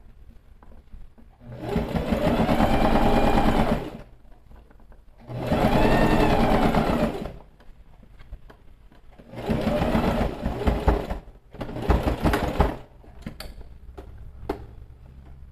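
Electric sewing machine stitching in four short runs with pauses between, its motor speeding up and slowing in each run, the stop-start pace of topstitching around a curved seam. A few light clicks follow near the end.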